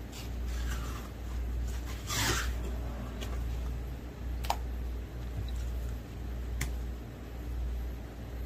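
Knife scraping along the skin of an olive flounder fillet on a plastic cutting board as the skin is stripped off, with a rasping scrape about two seconds in and two sharp clicks later, over a steady low hum.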